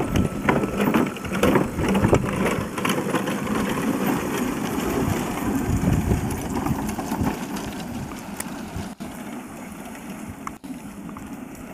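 Small backyard riding train running along its garden track with a steady mechanical running sound and short clicks, getting quieter about eight seconds in as it moves away.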